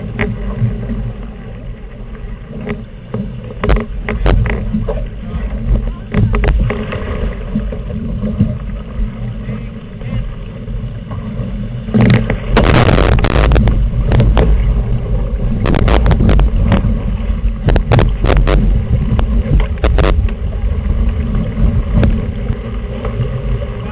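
Strong wind buffeting the microphone and water rushing past the hull of a Flying 11 sailing dinghy driven hard in 20–25 knot winds, with scattered knocks and clatters from the boat. About twelve seconds in the rushing grows louder and stays loud.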